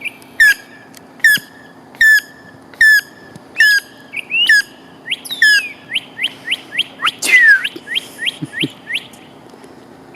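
Northern mockingbird singing at night. It repeats one sharp, falling whistled note about seven times, a little under a second apart, then switches to a faster run of chirping notes.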